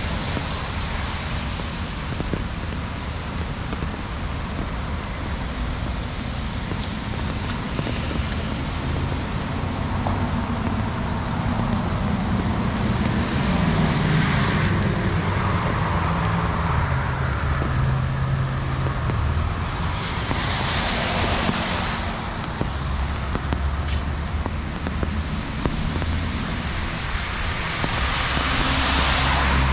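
Rain falling steadily on a city street while cars pass on the wet road. Tyre hiss swells three times, about halfway, two-thirds of the way through and near the end, with a low engine hum under the first pass.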